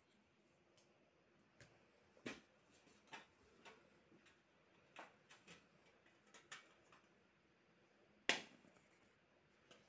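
Near silence with about a dozen faint, sharp clicks and taps at uneven intervals as a pencil draws lines on a sheet of paper; the loudest click comes about eight seconds in.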